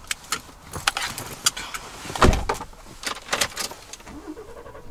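Someone climbing into the driver's seat of a Ford truck's cab. There are a series of sharp clicks and rattles and the rustle of movement, with one solid thump about two seconds in.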